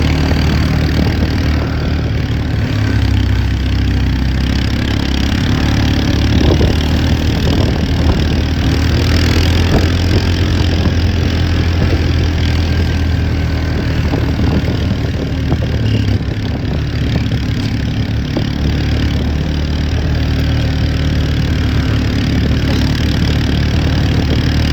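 A steady engine drone, running evenly with no clear starts or stops.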